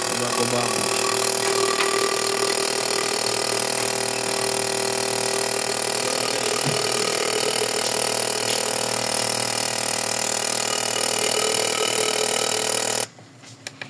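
Fuel injector tester running steadily with a Suzuki Celerio fuel injector firing on it, a constant mechanical buzz that cuts off abruptly near the end. The injector is spraying well after cleaning.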